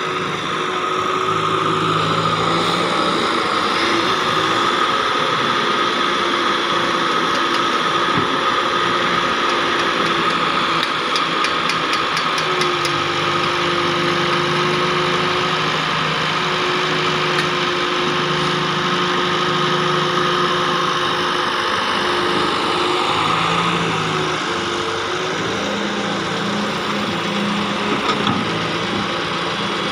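Wheeled Hitachi excavator's diesel engine running steadily as it digs and loads, its pitch shifting a little from time to time as the hydraulics take load, with a steady whine over it.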